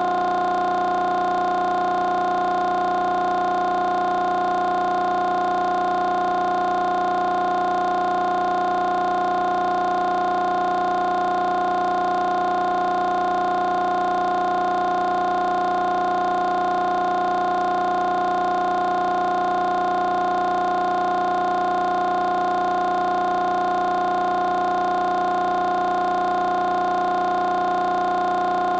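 A steady held drone of several pitches sounding together, unchanging in pitch and loudness.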